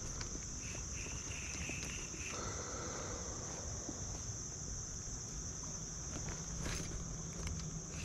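Steady high-pitched chorus of insects singing, with a faint low rumble underneath.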